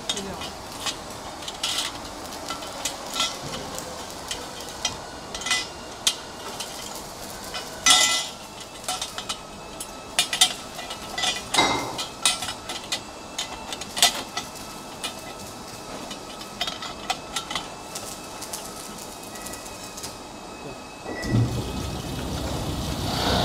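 Metal workpieces clinking and clattering as they are handled and set into the polishing machine's fixture plate: irregular sharp metallic clinks over a faint steady machine hum. Near the end, a louder steady running noise of the buffing machine comes in.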